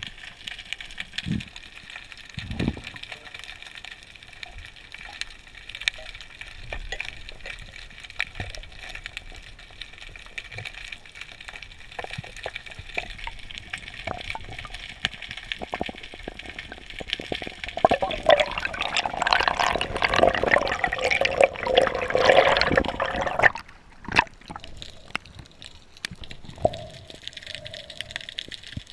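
Underwater sound through a camera housing: a steady hiss with scattered clicks and a few low thumps, then about 18 seconds in a loud rush of bubbling for some five seconds that stops abruptly, the air bubbles of a diver breathing out.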